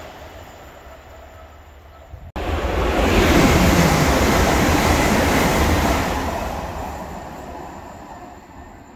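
A Lumo Class 803 electric train passing along the platform. It comes in loud after a sudden cut about two seconds in and fades steadily over the last few seconds. Before the cut, the fading running noise of an LNER Azuma that has just gone by.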